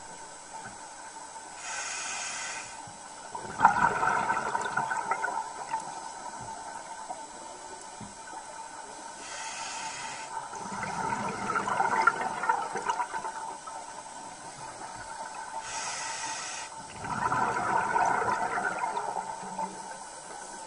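Scuba diver breathing underwater through a regulator: three breaths, each a short hissing inhale followed by a longer bubbling exhale.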